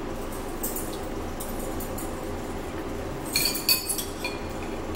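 Metal spoons clinking against ceramic bowls, a quick cluster of ringing clinks about three and a half seconds in, with a few lighter scrapes before it, over a steady low hum.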